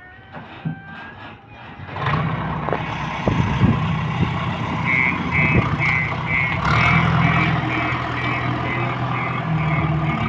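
Heavy construction machine's diesel engine running steadily, with a few knocks as it grows loud about two seconds in. From about five seconds in, a reversing alarm beeps about two and a half times a second.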